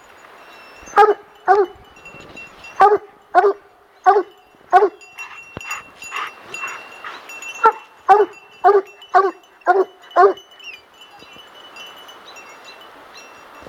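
Plott hound barking in short, evenly pitched barks, about a dozen in the first ten seconds, some in quick pairs, then stopping.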